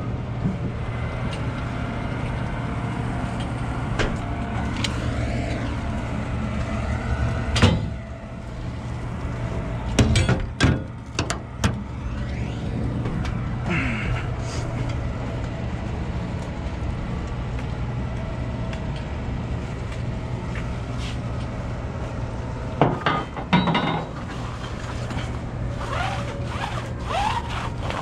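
Semi-truck diesel engine idling steadily, with a handful of sharp metal knocks and clanks, the loudest about eight and ten seconds in and another cluster a little before the end. A few short squeaks come near the end.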